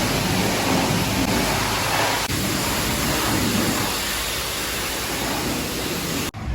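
High-pressure wash wand spraying water at a self-serve car wash: a steady loud hiss with a low hum underneath, cut off abruptly near the end.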